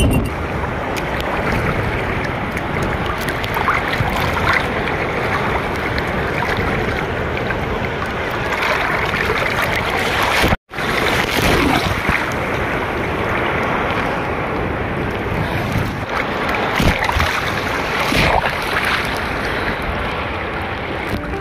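Sea surf washing up a sandy beach, a steady rush of breaking waves and water. The sound cuts out for an instant about halfway through, then carries on.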